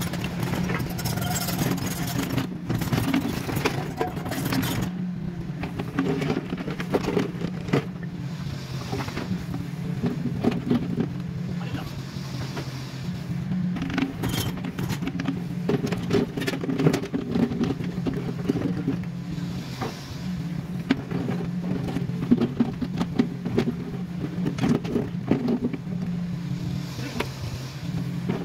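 Kubota mini excavator's diesel engine running steadily, its note shifting with the load as the hydraulics work, with scattered knocks and clanks throughout.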